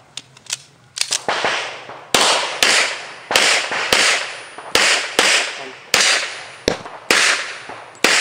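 A handgun fired in a steady string of about ten shots, roughly two a second, starting about two seconds in after a few faint clicks. Each shot is sharp and trails off before the next: a competitor shooting a practical pistol stage at plate targets.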